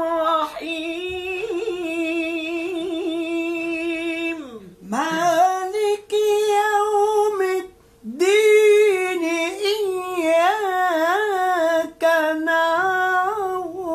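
A voice chanting the Quran in melodic tajwid style, drawing out long wavering, ornamented notes over about five phrases with short breaks for breath.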